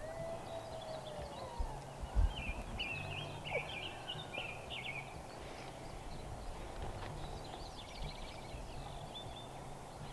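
Small birds twittering in quick runs of high chirps over a low outdoor background, with a few low bumps of wind on the microphone.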